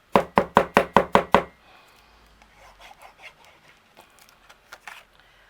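Seven quick, loud knocks on a hard surface, about five a second, then faint light taps and paper rustling.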